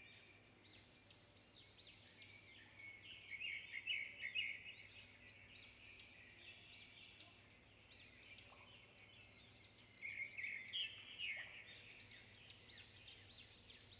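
Many small birds chirping and twittering in an overlapping chorus, faint, with louder spells about four seconds and about eleven seconds in, over a steady low hum.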